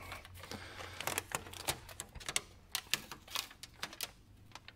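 Aluminium foil tape being wrapped around and pressed onto a metal vent pipe joint, making light, irregular crinkles and clicks.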